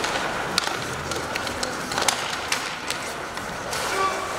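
Ice hockey in play: skates scraping the ice and several sharp clacks of sticks and puck, over the steady background noise of the rink.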